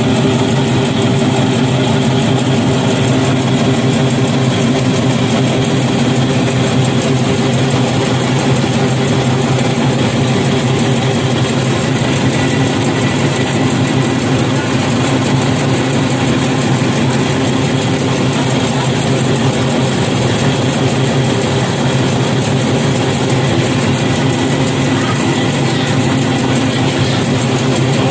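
Electric meatball-forming machine running steadily, its motor giving a constant hum over an even mechanical whir.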